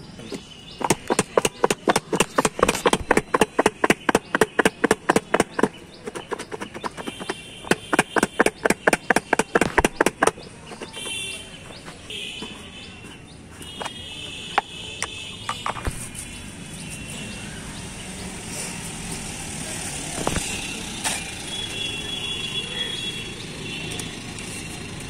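Cut guava and masala shaken together in two plastic cups held mouth to mouth, rattling and knocking about three times a second in two runs of several seconds with a short pause between. Afterwards only a quieter street background remains.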